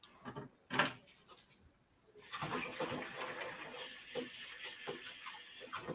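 Kitchen sink tap running as hands are washed under it, turned on about two seconds in and off near the end. A couple of light knocks come before the water starts.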